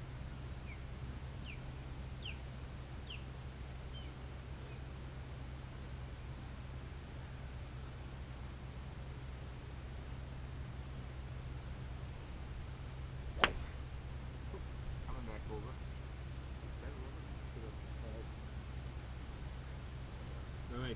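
A golf club strikes a teed-up ball once, a single sharp crack about thirteen seconds in, over a steady high-pitched insect chorus.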